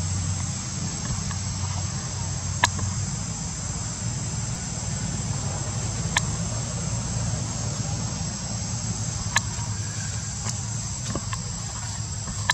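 Steady high-pitched drone of insects, with a low steady rumble beneath it and a few sharp, separate clicks spread through it.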